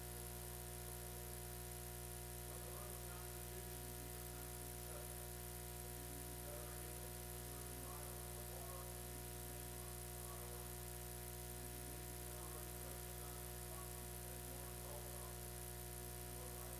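Steady electrical hum and buzz on the recording, with faint music wavering underneath.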